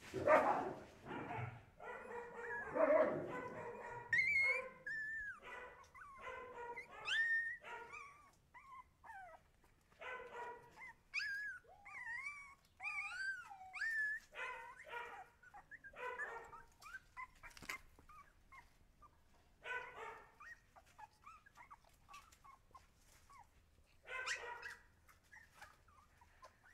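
Husky puppies yipping, whimpering and giving short barks, high-pitched calls that bend up and down in pitch, in irregular bursts with brief pauses.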